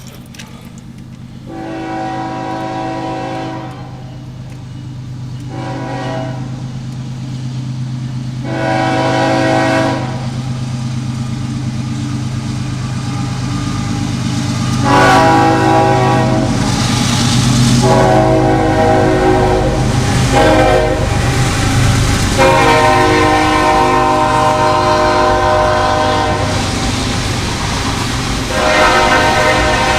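CSX freight locomotive's air horn sounding a series of chord blasts of varying length, the longest about two-thirds of the way through, over a steady low drone.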